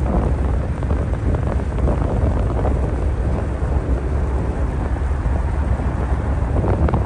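Wind buffeting the microphone on the open deck of a ferry, over a steady low rumble from the ship under way.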